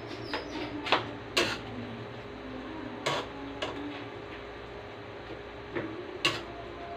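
Metal spatula clinking and scraping against a steel pan while stirring greens, in pairs of sharp strikes about a second in, around three seconds in, and near the end, over a steady low hum.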